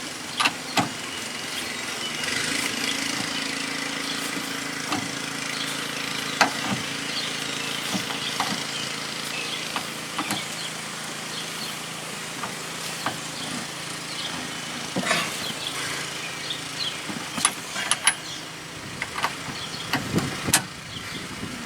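Scattered metallic clicks and knocks of hand tools tightening the steering wheel retaining nut on its shaft, over a steady low hum.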